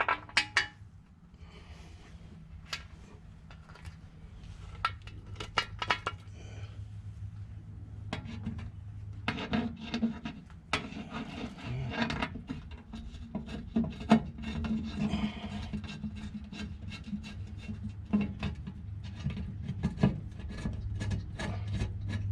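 Irregular light metal clicks and scraping as a differential cover, its new gasket and bolts are handled and the bolts are started by hand, over a low steady hum.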